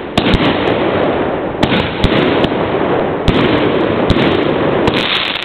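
Fireworks going off: a dozen or so sharp bangs from bursting fireworks, some in quick pairs, over a constant rushing noise.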